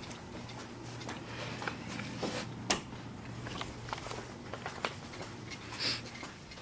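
Small rustling and handling noises with one sharp click about two and a half seconds in: a light switch being flipped that does not turn on the crawl space light. A faint low hum runs underneath and stops near the end.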